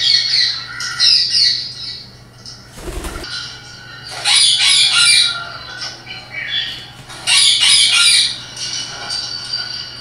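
Pet parrot squawking loudly in four shrill bursts, with a short dull thump just before the third.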